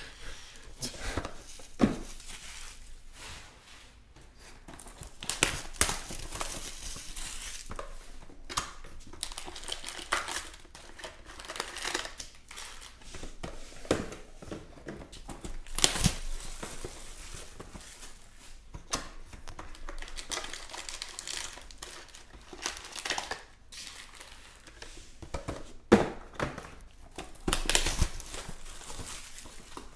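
Crinkling and rustling of foil trading-card packs and plastic shrink-wrap being handled, with sharp crackles and tearing as the wrap is pulled at, scattered irregularly throughout.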